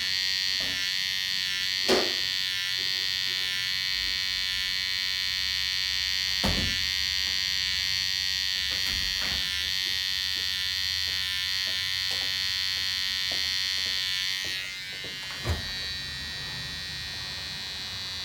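Gamma+ Absolute Hitter cordless hair trimmer running with a steady high whine while cutting hair, with a few light knocks. The whine drops a little in level and shifts about fourteen seconds in.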